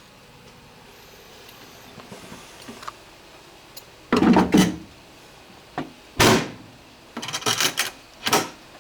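Knocks and clatter of objects being handled and set down: a cluster about four seconds in, a single knock near six seconds, and a run of quick rattles and another knock toward the end.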